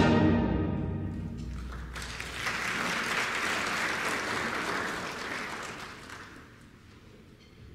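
A concert band's final chord cuts off and rings on in the hall for about a second, then the audience applauds for a few seconds and the clapping dies away.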